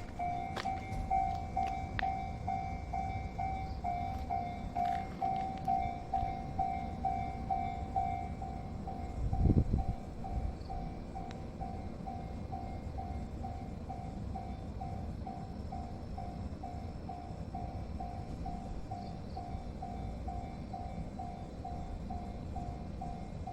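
Japanese level crossing warning bell ringing, a single electronic ding repeated about twice a second without a break, over a low rumble that the tagger hears as a train. A brief loud low thud about ten seconds in.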